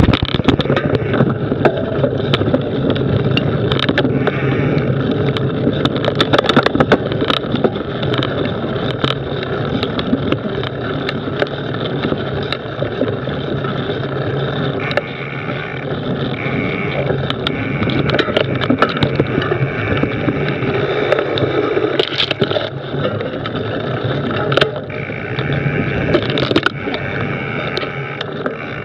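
Mountain bike riding a rough dirt singletrack: a steady rumble of knobbly tyres on the trail, with frequent knocks and rattles from the bike over bumps.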